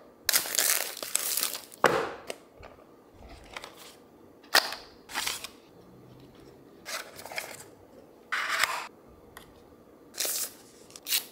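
Smartphone retail packaging being unboxed and handled: about a dozen short rustles, crinkles and scrapes of cardboard, paper and plastic, with a few sharp taps.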